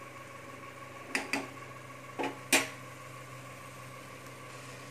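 A steel spoon knocking against a steel saucepan of diced potatoes as they are stirred: four short clinks, two close together about a second in and two more a second later, over a steady low hum.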